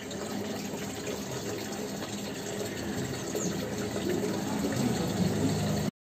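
Steady rushing of water, growing a little louder about three seconds in and cutting off suddenly near the end.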